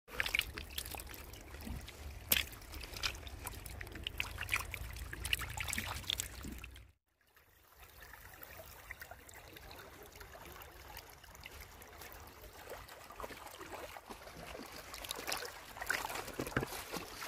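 Water pouring from two plastic pipes and splashing into a muddy pit where climbing perch are caught, with many small splashes. After a short break, shallow water trickling over a muddy stream bed, busier near the end with splashing as feet wade in.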